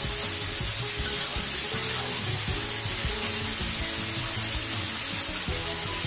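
Chopped vegetables frying in hot oil in a pan, with a steady sizzle, over background music with stepped melody notes.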